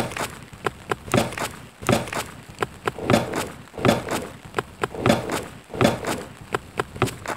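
Footstep sound effects laid out as a steady rhythmic beat. A heavier step lands about every two-thirds of a second, with lighter clicks and taps between the steps.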